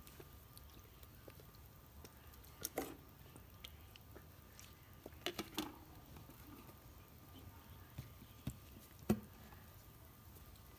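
Quiet room with a low steady hum and a few scattered soft clicks and taps, the sharpest about nine seconds in.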